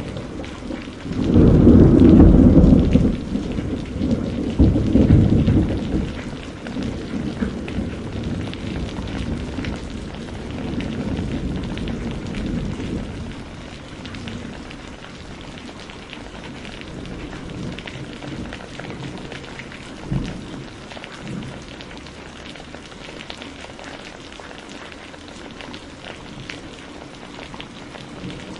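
Steady rain falling, with a loud clap of thunder about a second in that swells again a few seconds later and rumbles away over the next ten seconds or so. A brief low thud comes about two-thirds of the way through.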